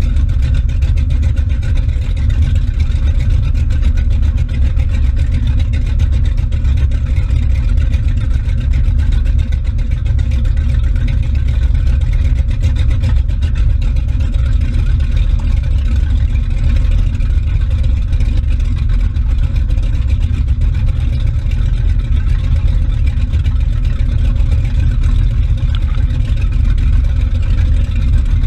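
Motorboat engine running steadily at speed, a constant deep rumble mixed with the rush of the churning wake just below the stern-mounted camera. It holds one even pitch and level throughout, running smoothly.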